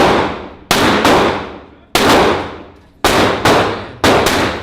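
A gun fired in a quick, uneven string of about seven shots, each with a ringing echo that fades over most of a second.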